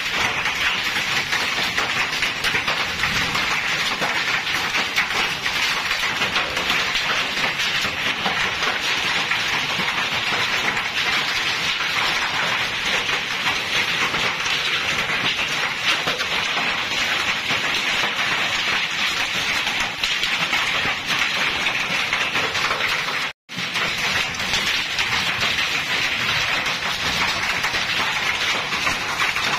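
Hailstorm: hail and heavy rain pelting wet paved ground, a dense, steady patter of countless small impacts. The sound cuts out for a split second about three-quarters of the way through.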